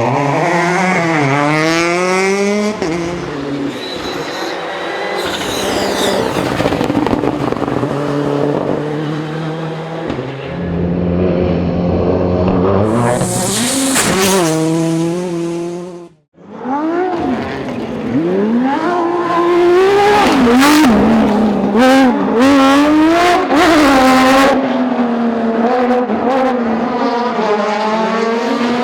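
Rally cars at full attack on a stage, their engines revving hard and rising and falling in pitch through gear changes as they pass, with a sudden cut about halfway through. Later comes a run of sharp cracks and pops over the engine.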